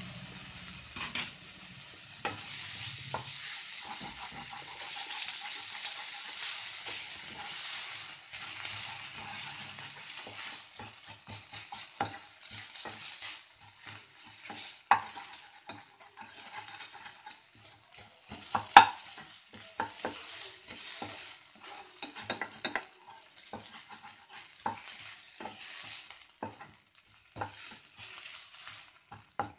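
Potato cubes sizzling as they fry in a thick spiced onion-tomato masala in a nonstick pan, stirred with a wooden spatula that scrapes and clicks against the pan. The sizzle is strongest in the first half and thins out later, while the sharp spatula clicks go on throughout, the loudest about two-thirds of the way in.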